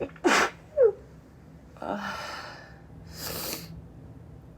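A woman's deliberately high-pitched, girly sneeze: a sharp burst, then a short squeaky cry falling in pitch about a second in, followed by two breathy, hissing sounds.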